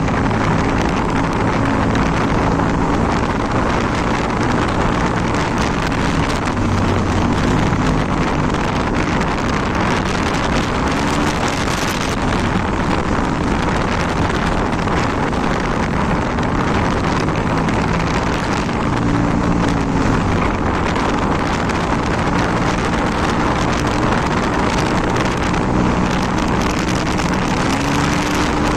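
Wind rushing over the microphone of a moving Yamaha TMAX 530 maxi-scooter, with its parallel-twin engine and newly fitted aftermarket exhaust barely heard underneath, the engine's pitch rising and falling with speed.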